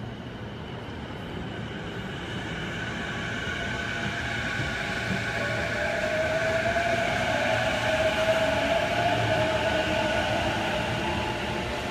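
JR East E233 series electric train pulling out and gathering speed, its inverter and traction motors giving a whine in several steady tones that rises slowly in pitch and grows louder, over the rumble of wheels on rail.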